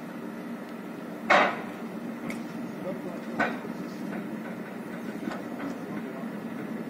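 Heavy-haulage low-loader truck carrying a tram, engine running steadily, with sharp knocks: a loud one about a second in, another about two seconds later and a few fainter ones after.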